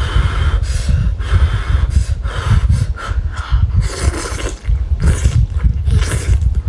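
A person taking repeated sharp, noisy breaths through the mouth after scalding it on hot food, over a steady low rumble.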